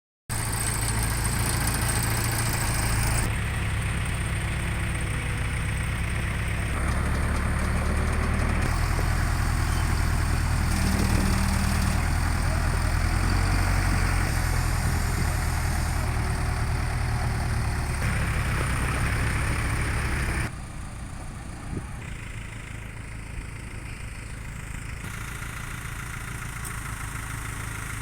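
Delivery truck engine running steadily. The sound changes abruptly several times and drops to a quieter level about two-thirds of the way through.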